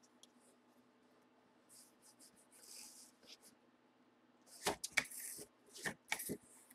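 A white cardboard mailer box being opened by hand. Faint sliding and rustling come first. About four and a half seconds in, a quick series of sharp cardboard cracks and clicks follows as the tucked lid flaps are pulled free and the lid is lifted.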